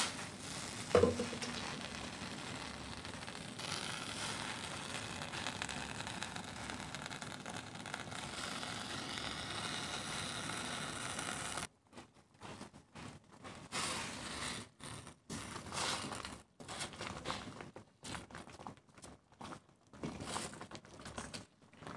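Pot of cassava leaves boiling in salted water: a steady bubbling hiss for about the first half, with a short clink about a second in, then broken, intermittent crackling and rustling.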